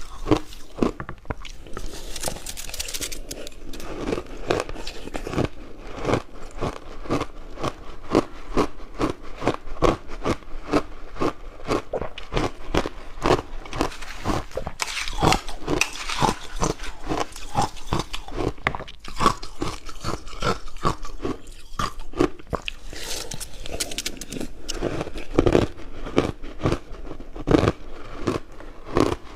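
Close-up crunching and chewing of frozen purple ice, a steady stream of sharp, rapid cracks as it is bitten and ground between the teeth.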